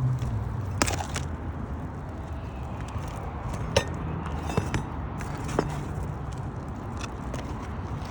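Scattered light knocks and clicks from work on a shingle roof, over a steady low rumble.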